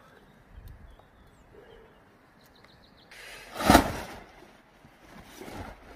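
A loud rustling burst lasting about a second, about three and a half seconds in, over a faint outdoor background with a few short bird chirps.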